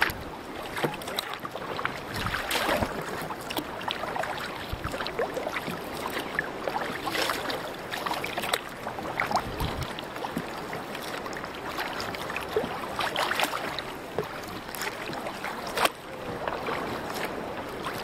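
Canoe paddles dipping and splashing in sea water, with irregular splashes and knocks and an occasional low buffet of wind on the microphone.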